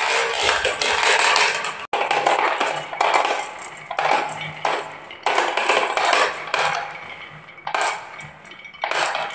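Marbles rolling and clattering down wooden marble-run tracks, in several runs of a second or two that each start abruptly.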